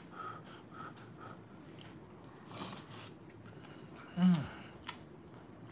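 A person chewing a mouthful of hot fried rice close to the microphone: soft wet mouth clicks, a breath out about two and a half seconds in, and a short falling "mm" of enjoyment a little after four seconds.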